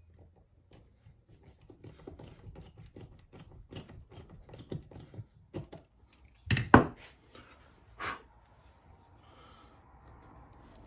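Small hand screwdriver driving a screw into an oak board: a run of small irregular clicks and creaks. A loud clatter comes about six and a half seconds in as the tool is put down, with a smaller knock about a second and a half later.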